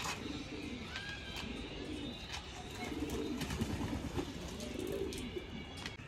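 Racing pigeons cooing repeatedly, with scattered short splashes and flutters as they bathe themselves in a shallow tray of water.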